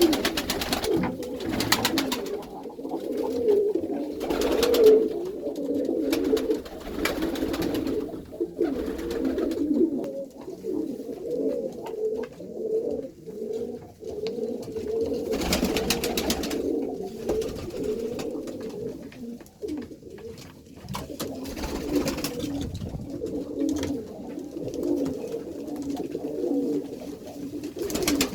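A loft full of Iranian domestic pigeons cooing together: a steady chorus of overlapping low coos, with a few brief louder rustles.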